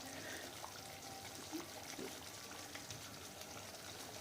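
Chicken korma simmering in oil in a pan over a low flame: a faint, steady sizzle with a few light ticks.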